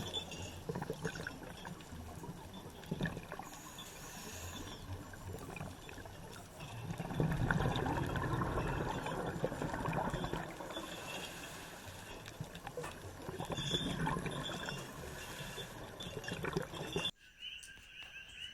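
Water trickling and splashing, an uneven wash of noise that swells about seven seconds in and cuts off abruptly near the end.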